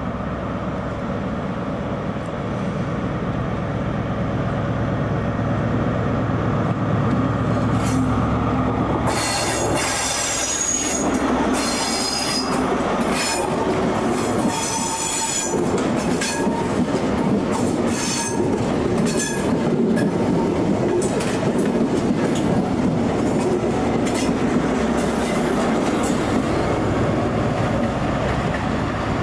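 A train on the move: a steady low drone, then from about nine seconds in its wheels squeal against the rails in repeated high-pitched bursts that come and go for most of the rest.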